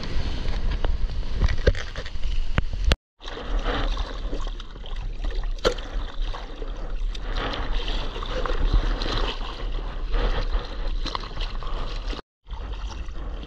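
Water splashing and rushing around a surfboard-mounted action camera, with wind buffeting the microphone as a deep rumble. The sound cuts out completely for a moment twice, about three seconds in and near the end.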